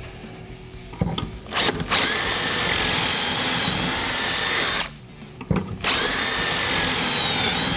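Cordless drill boring two pocket holes in a board with a stepped pocket-hole bit through the drill guides of a Kreg K5 pocket-hole jig. There are two steady runs of a high drill whine, each about three seconds, with a short pause between them. Short knocks come just before each run.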